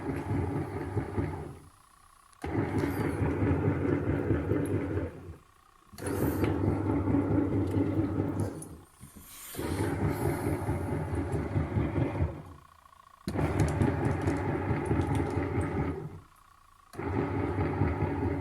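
Small bucket-type washing machine's pulsator churning the wash water with a motor hum, stop-start. It runs for about three seconds, pauses for about a second, and repeats this evenly, five times over, as the wash action alternates.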